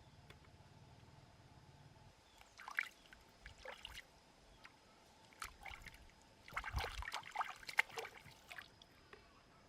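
Liquid splashing and trickling in short, irregular bursts, in two spells with the busiest around seven seconds in.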